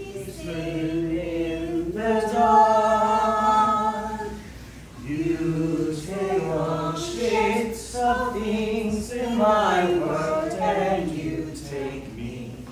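Unaccompanied singing: voices hold long notes, swell louder about two seconds in, then move through quicker, gliding phrases after a short dip.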